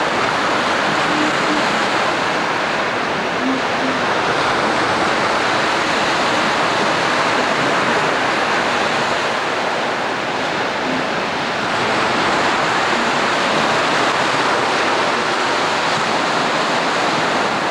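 Ocean surf breaking and washing ashore: a steady rushing hiss that eases slightly about ten seconds in and swells again.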